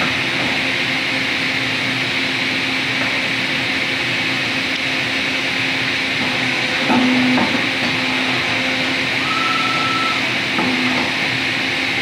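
Steady machinery hum and hiss with a low tone running underneath, a few light knocks about seven seconds in, and a short higher tone about nine seconds in.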